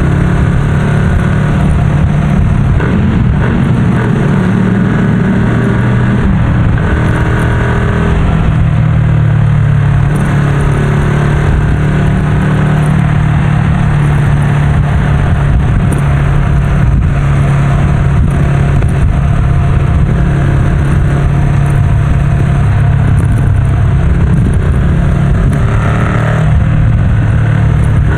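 Ducati Scrambler's air-cooled 803 cc L-twin running through a Termignoni full-system exhaust, cruising at motorway speed with a loud, fairly steady exhaust note.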